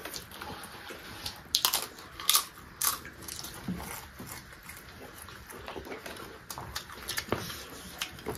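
People biting and chewing crunchy food close to the microphone: several sharp, separate crunches with softer chewing between them.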